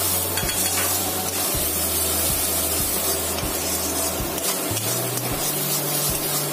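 Thick masala gravy hissing and sizzling in a kadai as a metal spatula stirs it over a low flame, cooking until the oil separates.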